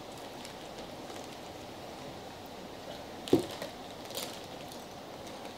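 Quiet eating and food-handling sounds over a steady hiss: faint rustles and small clicks, with one sharp knock a little past halfway and a few crisp clicks just after it.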